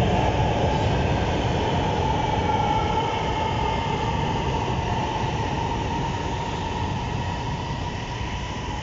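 Electric metro train pulling out of an elevated station and gathering speed: a steady rumble with a faint whine that slowly rises in pitch, fading gradually as the train moves away.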